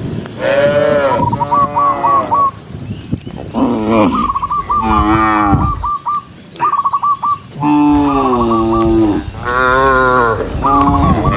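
Cattle in a herd mooing, one long call after another with several voices overlapping, about six calls in all, with short lulls between them.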